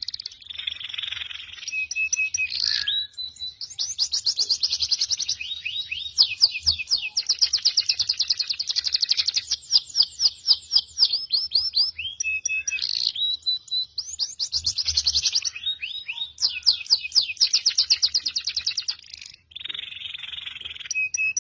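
Songbird song: long rapid trills of repeated sweeping notes, about ten a second, broken by short steady whistled notes and brief pauses.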